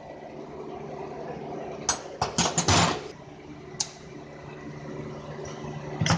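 Metal tools and parts clinking and clattering against a workbench: a quick run of knocks about two seconds in, a single click a little later, and more clicks at the end. A steady low machine hum runs underneath.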